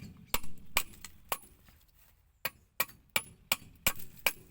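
Blade of a Bellota picoleta (alcotana hatchet) chopping into dry pine, about ten quick light strikes with a short pause about halfway through, as the branch is hewn and squared.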